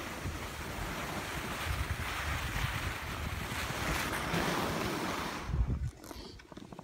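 Wind buffeting the microphone, with a steady hiss of sliding over snow while moving downhill. It drops off sharply about six seconds in, as the movement stops.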